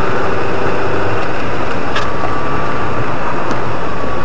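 Steady, loud engine and tyre noise inside a car's cabin as it drives over a snow-covered road, with a faint click about two seconds in.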